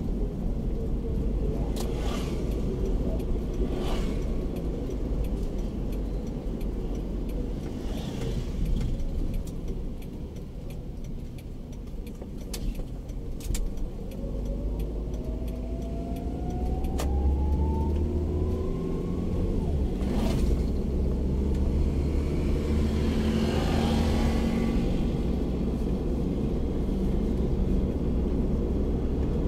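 Daihatsu Terios's four-cylinder engine and tyre rumble heard from inside the cabin while driving: the sound eases off about ten seconds in, then the engine pitch rises steadily for several seconds as the car accelerates again. A few sharp knocks punctuate the rumble.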